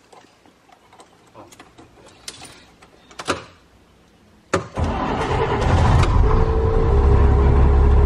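A few light clicks and key jingles at the ignition, then about four and a half seconds in the 1999 Chevy Blue Bird school bus engine turns over and catches, building within a second to a steady loud idle. The engine starts on freshly installed batteries.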